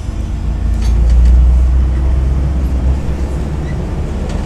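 MAZ-105 articulated city bus heard from inside while driving: a steady low diesel engine drone with road noise. It swells a little louder about a second in.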